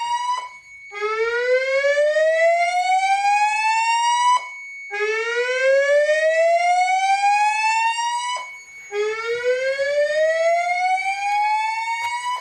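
Fire alarm voice-evacuation speakers sounding the slow whoop alert tone that precedes a recorded evacuation message. It is three rising sweeps, each lasting about three and a half seconds with a short break between them, over a faint steady high tone.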